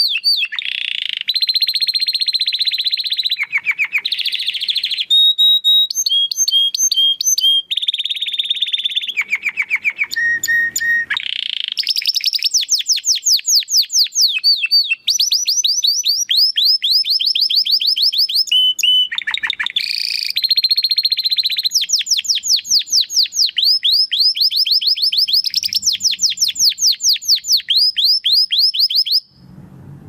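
Domestic canary in full song: long rapid trills of fast repeated sweeping notes, broken by held buzzing tones and short rolls, changing pattern every second or two. The song stops near the end.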